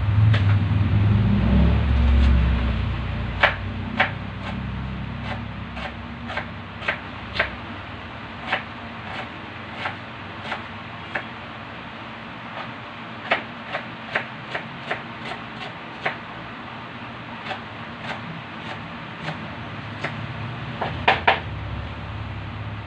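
Kitchen knife cutting a red onion on a plastic cutting board: irregular knocks of the blade on the board, about one or two a second, with a quick flurry of chops near the end. A low rumble sits under the first couple of seconds.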